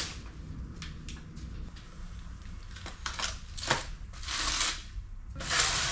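Plastic nursery trays and pots of bedding plants being handled: rustling and scraping of the plastic in several short bursts, the longest near the end.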